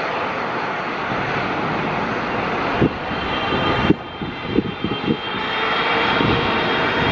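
Korean Air Boeing 777-300ER's General Electric GE90-115B turbofans powering up for takeoff: a steady jet roar, with a high fan whine coming in about halfway and the sound growing louder near the end. Irregular low thumps of wind buffet the microphone.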